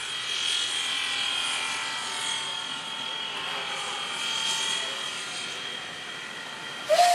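Steam-hauled passenger train running past, its noise carrying a steady high squeal. Right at the end a steam whistle starts to blow sharply.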